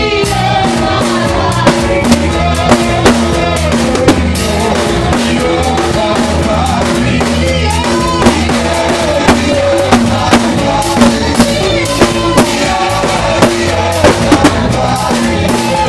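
Upbeat worship music with a drum kit keeping a steady beat over a bass line and melody.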